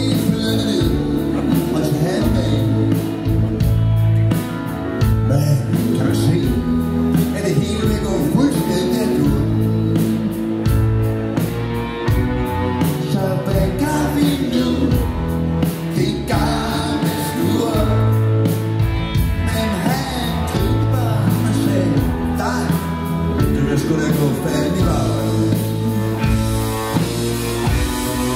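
Live rock band playing through a PA in a hall: electric guitars, bass, drums and keyboard, with a sung lead vocal over a steady beat.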